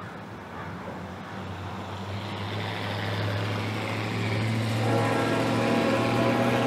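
Norfolk Southern freight train's diesel locomotives drawing closer, a low engine drone that grows steadily louder, with higher humming tones joining about five seconds in.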